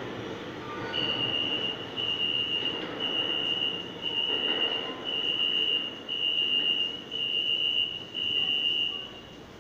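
A New York subway train rumbles as it pulls out through the tunnel, fading with distance. Over it, a high-pitched beep repeats steadily, about once a second, eight times, and stops just before the end.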